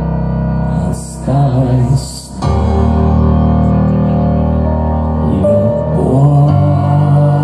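Live band music heard through a club sound system: sustained keyboard chords over a deep bass. The music breaks off briefly about a second in, then comes back with a new held chord.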